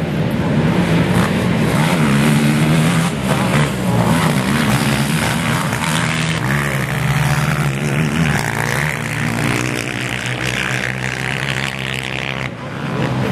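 Several racing ATV engines running and revving together, their pitches wavering up and down. In the second half, one engine climbs steadily in pitch, then drops away near the end.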